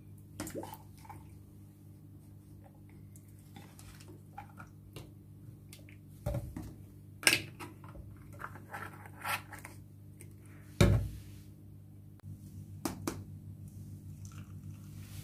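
Small plastic slime jars and lids being handled: scattered clicks and knocks as a lid is twisted onto a clear jar and containers are set on a stone countertop, with two sharper knocks about 7 and 11 seconds in. A steady low hum runs underneath.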